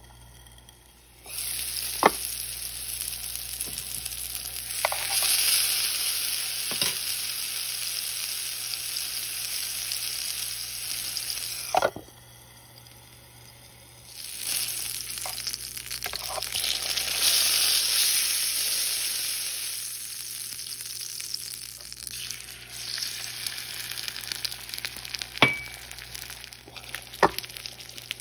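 Food frying in oil in a MyMini small electric skillet under a glass lid: a steady sizzle with a few sharp clicks. The sizzle starts about a second in, drops out for a couple of seconds near the middle, comes back louder, then grows quieter in the last third.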